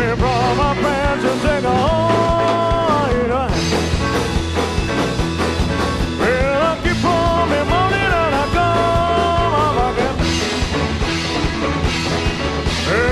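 Rock and roll band playing a rockabilly number, with held, bending melody notes over the full band.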